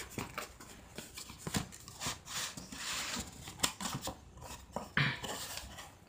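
A cardboard box being opened and handled: the flaps scrape and rub, with scattered light taps and rustles, and a stronger scrape about five seconds in.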